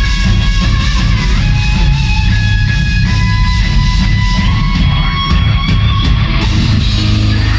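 Live progressive death metal band playing at full volume: distorted guitars carry a high melodic line over heavy bass guitar and drums.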